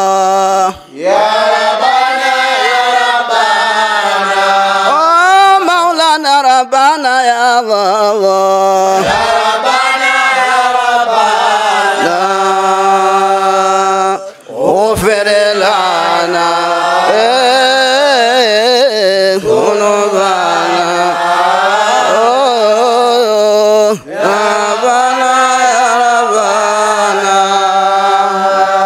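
Men's voices chanting an Arabic Sufi dhikr in long, bending melodic phrases, sung into microphones. The chant breaks briefly for breath about a second in, midway and again near the end.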